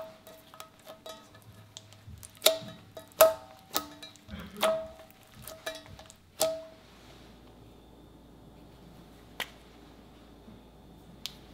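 Slime being stretched, poked and pressed by fingers, giving a quick run of sharp pops and clicks, the loudest a few seconds in. After about seven seconds it goes quiet apart from two single clicks.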